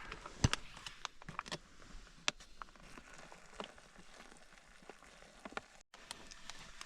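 Scattered light clicks and crinkles with a faint patter as boiling water is poured into a foil freeze-dried meal pouch and the pouch is handled.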